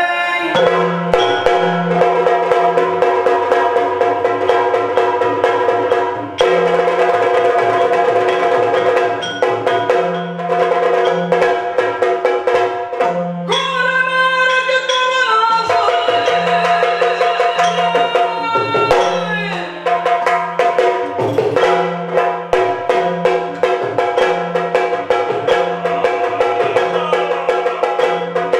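Yakshagana ensemble music: rapid drum strokes in a repeating pattern over a steady sustained drone.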